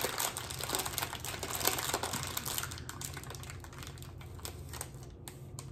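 Plastic candy bag crinkling and rustling while someone rummages through it for candy pieces: a dense run of small irregular crackles, busiest in the first half and sparser toward the end.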